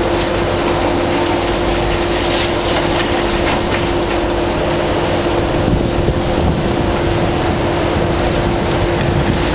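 Hitachi ZX650 excavator's diesel engine and hydraulics running steadily under load, with a constant whine, while its demolition attachment tears at a concrete building; falling rubble clatters now and then.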